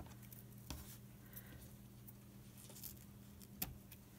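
Faint snips of fabric scissors cutting through quilting cotton: a few short, sharp clicks, the clearest near the end, over a steady low hum.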